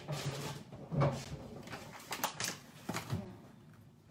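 A few scattered knocks and clatters of kitchen items being handled and set down on a counter.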